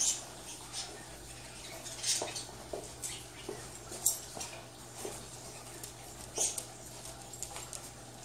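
Scattered light ticks, taps and scrapes, with louder ones about two, four and six and a half seconds in: a small dog's claws on a hardwood floor and a person handling the folding bed's metal parts.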